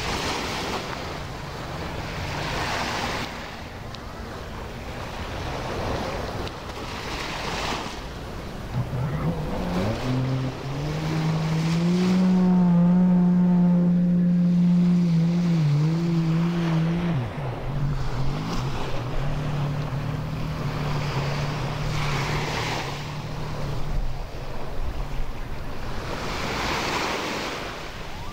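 Sea waves washing onto a sand beach, a swell every few seconds. About a third of the way in, an engine rises in pitch and runs steadily for several seconds. It then drops lower and fades.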